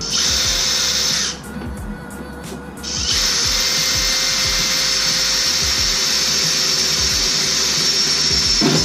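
A power drill running steadily in two runs: a short one of about a second, then a longer one of about six seconds after a brief pause.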